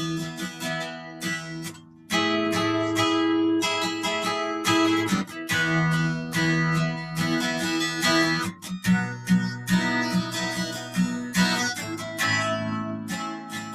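Acoustic guitar music, chords strummed and picked in a steady run, with a short pause about two seconds in.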